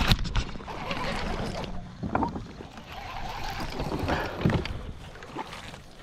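A sharp knock on a fishing kayak at the start, then about two seconds of rough water and handling noise, with a few more thumps against the boat.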